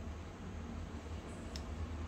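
Steady low background hum, with one light click about one and a half seconds in as a tiny metal spoon touches a small ceramic cup while scooping a soft milk mixture into it.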